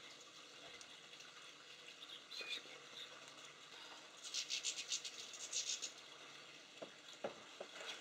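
Light rain falling in a steady, faint hiss. About four seconds in comes a burst of rapid, high twittering from a small bird, and a few light taps follow near the end.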